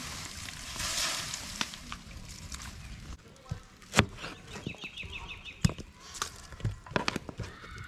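Pork sizzling in a hot wok as sauce is splashed in, a hiss that swells about a second in. Then come sharp, irregular knife chops through an onion onto a plastic cutting board. A bird gives a short, quick trill about midway.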